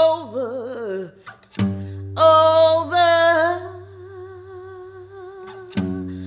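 A woman sings without words over an acoustic guitar, her voice wavering in pitch at first. A guitar chord is strummed about a second and a half in and again near the end. In between she holds one long, quieter note.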